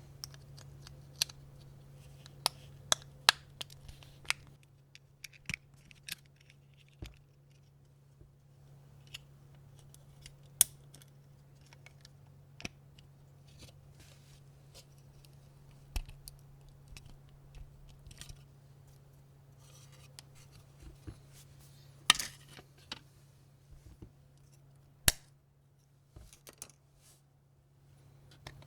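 Irregular sharp clicks and snips of small hand tools working on the metal and plastic parts of a 1:18 diecast model car, over a low steady hum.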